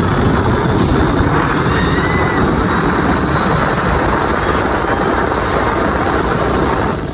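Loud, steady wind rush over the microphone together with the rumble of a Test Track ride vehicle speeding along its outdoor track.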